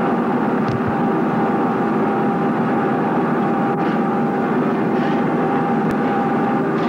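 Steady drone of heavy workshop machinery, several steady tones over a dense hum, with a few faint clinks.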